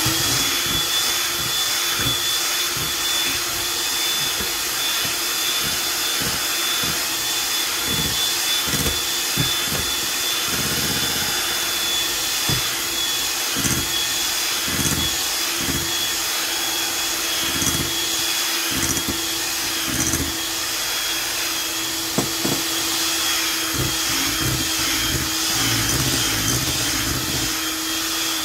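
Sunbeam electric hand mixer running at a steady speed with a constant motor whine, its beaters churning eggs and sugar in a glass bowl.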